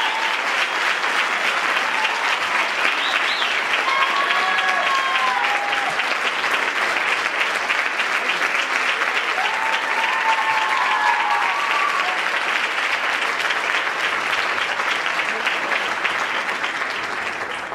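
Theatre audience applauding steadily, with a few voices calling out over the clapping. The applause fades down near the end.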